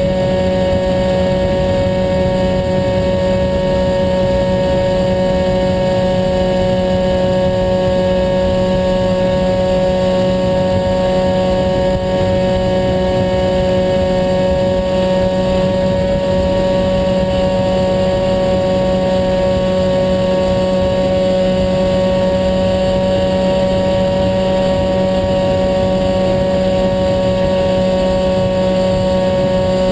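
HobbyKing Bixler model plane's electric motor and pusher propeller running at a steady throttle: a constant whining drone at an unchanging pitch, over a rush of wind on the on-board camera.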